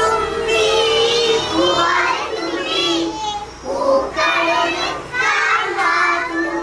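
Young children singing, with long held notes and short breaks between phrases.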